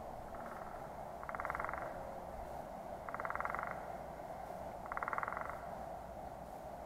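Recorded woodpecker drumming played through an outdoor audio post's loudspeaker: three short bursts of rapid tapping about two seconds apart.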